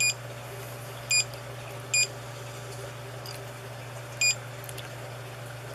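A 3D printer's touchscreen giving short, high key beeps as its buttons are tapped: four beeps at uneven intervals, over a steady low hum.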